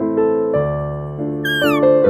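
A cat gives one short meow that falls in pitch, near the end, over steady background piano music.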